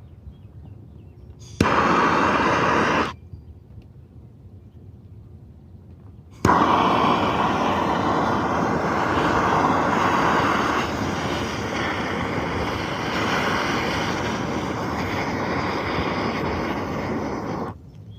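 Gas torch flame burning with a steady roar: a short burst of about a second and a half, then a longer run of about eleven seconds, each starting abruptly.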